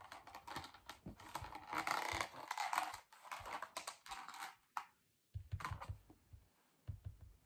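Scattered light clicks, taps and brief rustles of plastic-packaged wax bricks being handled on a tabletop.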